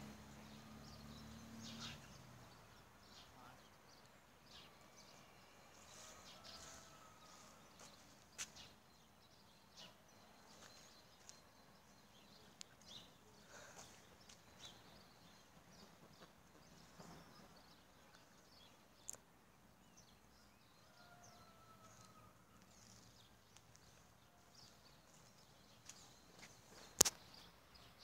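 Faint outdoor ambience with scattered distant bird chirps and a few short calls, one sharp click near the end.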